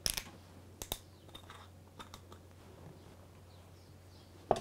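Sharp clicks and snaps of a screw cap being twisted open on a glass oil bottle, loudest in the first second and then scattered lighter clicks, followed near the end by a single knock.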